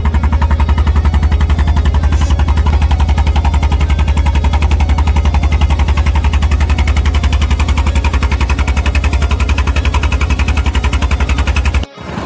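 A boat's engine running steadily under way, a rapid, even beat of low pulses. Near the end the sound breaks off for a moment and comes back with the engine fainter under the rushing hiss of the wake.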